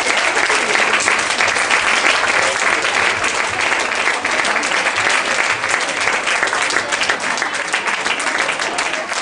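Audience applauding, a dense steady clapping that thins in the last second or so, when single claps stand out and it gets a little quieter.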